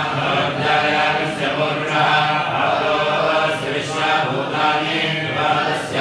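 A group of men chanting Sanskrit mantras together in a steady, unbroken recitation.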